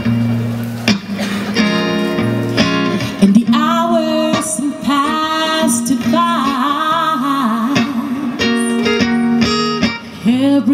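A song with plucked guitar and a singing voice. The voice comes in about three and a half seconds in and holds long wavering notes for several seconds before the guitar carries on alone.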